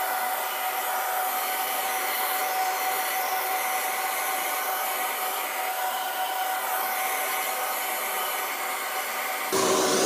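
Rozia HC8180 3000-watt handheld hair dryer running steadily: a constant rush of air with a thin steady whine. The sound grows louder and fuller about half a second before the end.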